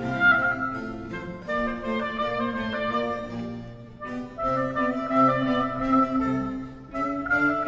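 Orchestral background music, with brass and woodwinds playing sustained phrases.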